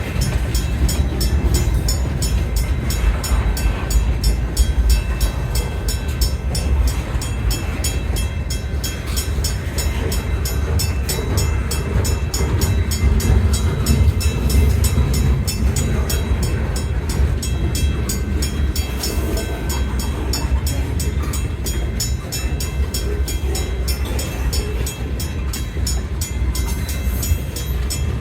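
A train passing close by on the rails: a steady, loud low rumble with rapid, regular clicking.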